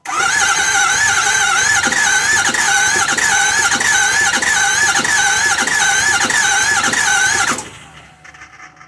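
Starter motor cranking a Ford 6.0 Powerstroke V8 turbodiesel for about seven and a half seconds. The whine wavers in pitch about twice a second with the compression strokes. The cranking stops abruptly without the engine firing: a crank-no-start condition.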